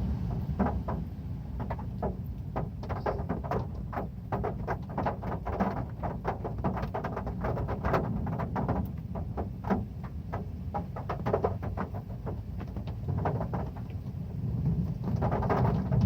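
Heavy rain on a metal roof: many irregular sharp clicks of drops striking the metal over a steady low rumble.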